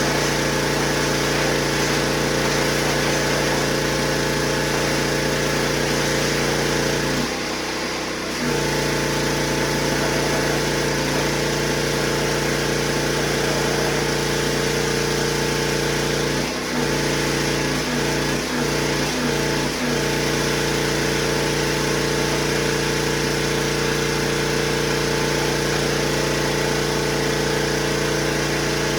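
Kärcher pressure washer running steadily with its pump under load. The motor sound dips for about a second partway through, then several brief dips in quick succession.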